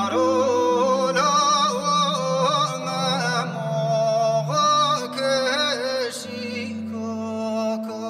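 Clarinet playing an ornamented folk melody with wavering vibrato and bent notes over acoustic guitar accompaniment. The lead line drops back about six seconds in, leaving softer held notes.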